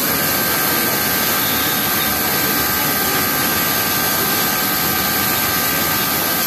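Yamato industrial flatlock sewing machine running steadily at speed while stitching a T-shirt hem, with a steady whine.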